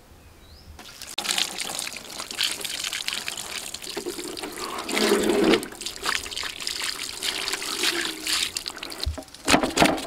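Water poured from a vessel splashing and trickling over a whole rohu fish on a metal plate as it is rinsed and rubbed by hand, starting about a second in. Near the end, quick rasping strokes begin as the fish's scales are scraped.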